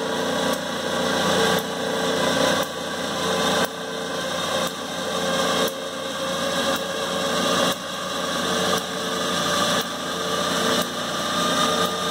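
Clausing 5914 lathe running, its motor and Reeves variable-speed belt drive giving a steady mechanical hum. The sound swells and drops sharply about once a second while a hand-operated hydraulic pump pushes pressure into the variable-speed drive to shift the belt.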